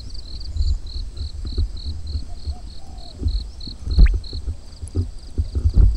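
An insect chirping in an even series of short high notes, about four a second, that stops about four seconds in. Under it come low bumps and a few sharper knocks, the loudest about four seconds in and again near the end.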